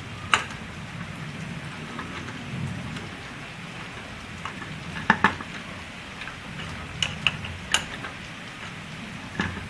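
Steady hiss of rain, with scattered sharp metallic clinks and knocks as metal lathe parts are handled and fitted; the loudest pair comes about five seconds in.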